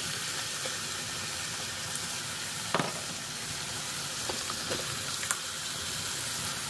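Diced chicken in sauce sizzling steadily in a frying pan on a gas stove as boxed cream is poured in, with a couple of light knocks around the middle.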